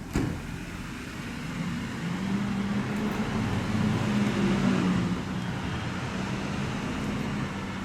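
A motor vehicle's engine running with a low, steady hum that grows louder toward the middle and then eases off slightly, after a sharp knock right at the start.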